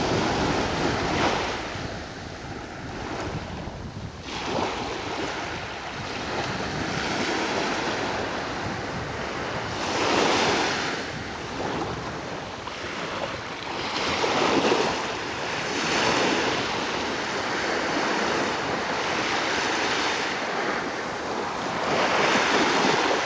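Small waves breaking and washing up onto a sand-and-pebble beach, the surf swelling and falling every few seconds.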